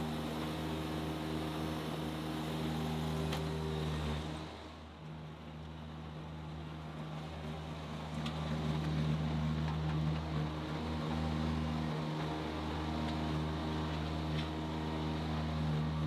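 Baumalight stand-on mini track loader's engine running steadily as the machine works, dipping briefly about four and a half seconds in and running louder from about eight seconds on.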